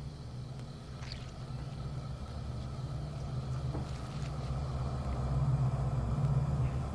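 A low, steady droning hum that slowly grows louder.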